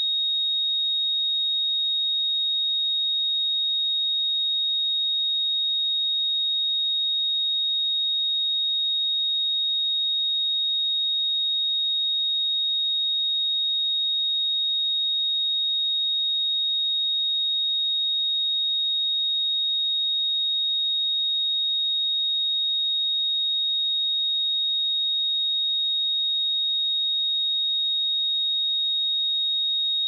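A pure 3747 Hz sine-wave test tone, one steady high-pitched whistle-like pitch at constant loudness with no other sound.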